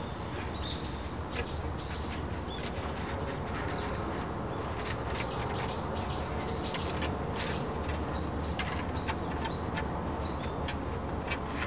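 Outdoor ambience: small birds chirping now and then over a steady low hum, with many short sharp clicks and rustles scattered throughout.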